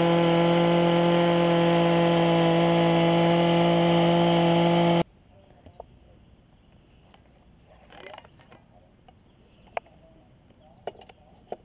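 Gas-powered handheld drill engine running at a steady speed while boring into the tree trunk with an auger bit, then cut off abruptly about five seconds in. After it, scattered light metal clicks and knocks as the drill and bit are handled for a bit change.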